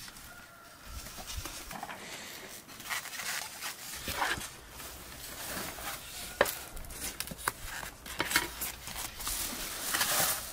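Handling noises from packing food into polystyrene foam takeaway boxes: irregular rustles, scrapes and squeaky clicks of the foam boxes and lids, with one sharp click a little past halfway the loudest.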